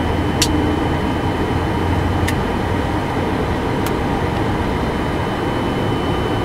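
Steady flight-deck drone of a Boeing 747-400 freighter on the ground, with the APU running and the two right-hand engines (3 and 4) spooling up after start. A thin steady high tone runs through it, and three brief sharp clicks come about half a second, two seconds and four seconds in.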